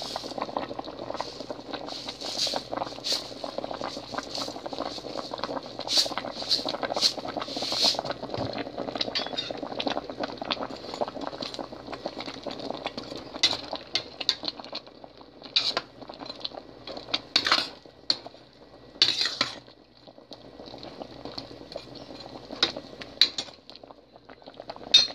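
Sinigang (tamarind fish soup) boiling in a stainless steel pot: a steady bubbling, broken by a dozen or so sharp metallic clinks scattered through it.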